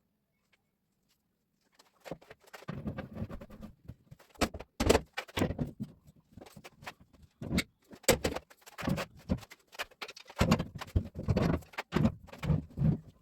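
Irregular knocks, clicks and clatter of hand work with tools and parts, starting about two seconds in.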